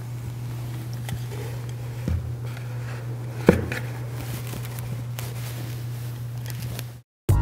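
A glass bowl is set down into the bottom half of a hollow globe, making a couple of light knocks, the sharpest about three and a half seconds in, over a steady low hum. The sound cuts off suddenly near the end.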